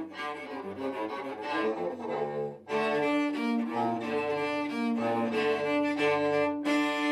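Three-part cello ensemble playing the closing bars of a piece: moving bowed notes at first, then, about three seconds in, a louder passage of long held notes sounding together, still ringing at the end.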